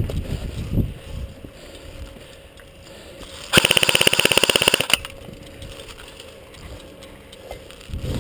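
Airsoft gun firing one fast full-auto burst of about a second and a half, an even rapid rattle near the middle, with low rustling before and after.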